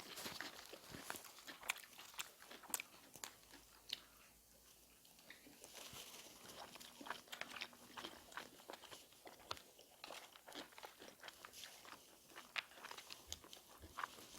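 Close-up chewing and crunching of food during a bossam meal, with many small crisp clicks and smacks. It quiets briefly about four seconds in, then carries on.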